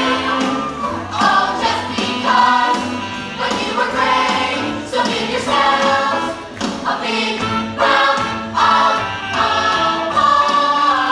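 A group of voices singing a musical-theatre song together over a backing track with a steady beat.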